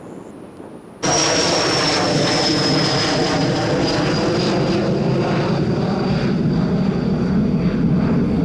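Twin-engine jet airliner on final approach to land: loud engine noise with a high whine that falls slowly in pitch, cutting in abruptly about a second in.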